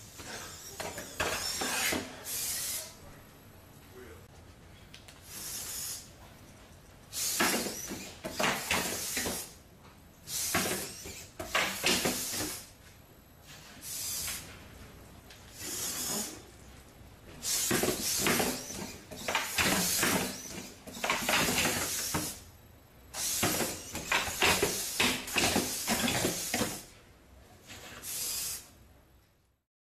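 Dynamixel AX-18A servo motors of a Bioloid GP humanoid robot whirring in repeated bursts of one to two seconds as it moves its limbs, with knocks of its frame and feet on the tabletop.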